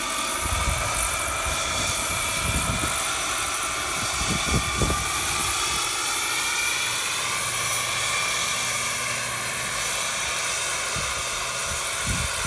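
Small gas-turbine engine of a radio-controlled Airbus EC135 scale helicopter whining steadily in flight, together with the whir of its rotor. The whine's pitch bends up and down slightly midway. Irregular low rumbles come through in the first few seconds.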